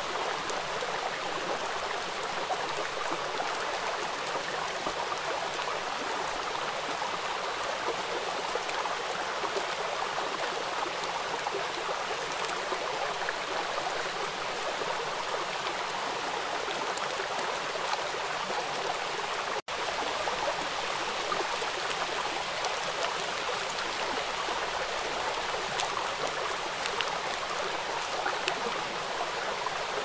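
Steady rushing of a flowing stream or river, an even wash of water noise without wave surges. It cuts out for an instant about twenty seconds in.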